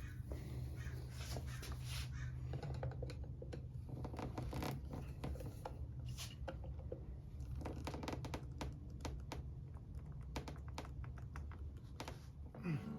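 Irregular light clicks and scrapes of small hand tools being handled against metal parts, over a steady low hum.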